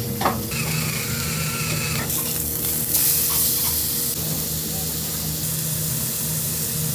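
Pork loin steak sizzling in oil in a non-stick frying pan, the sizzle growing louder from about two seconds in, over a steady low hum.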